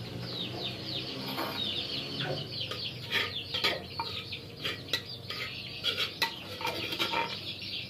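Chickens clucking, with rapid high, falling chirps all through. A few sharp clinks of a metal ladle against a steel bowl come in the middle.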